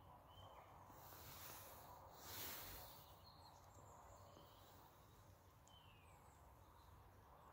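Near silence: faint outdoor ambience with a few faint, short bird chirps, and a brief soft rush of noise about two and a half seconds in.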